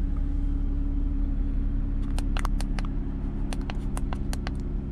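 Car engine idling steadily, heard from inside the cabin. From about two seconds in, a quick run of about a dozen sharp clicks as the buttons on a handheld OBD2 code scanner are pressed.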